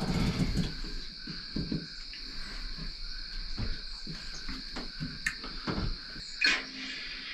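Steady, high-pitched chorus of insects outside, with scattered soft clicks and rustles from gear being handled close by.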